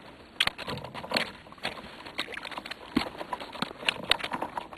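Close handling noise: irregular clicks, knocks and rustling, a few sharp ticks a second.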